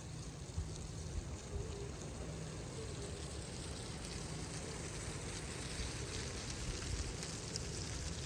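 Strong wind blowing steadily: a continuous rushing noise over a low, uneven rumble of gusts buffeting the microphone.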